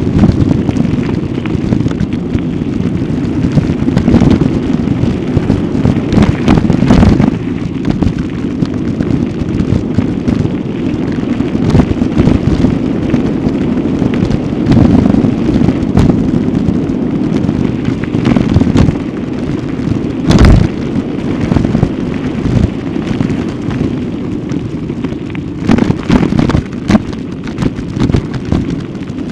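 Heavy wind rumble buffeting the microphone while moving fast along a gravel road, with many crackles and knocks from gravel under the wheels and handling of the camera; the sharpest knock comes about two thirds of the way through.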